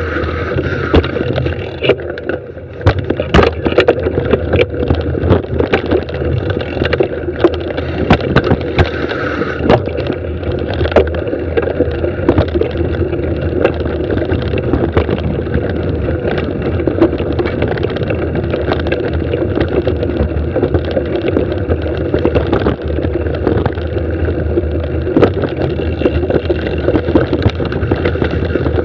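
Mountain bike descending a dirt singletrack: a continuous rumble of tyres on dirt, with frequent sharp knocks and rattles as the bike runs over roots and rocks.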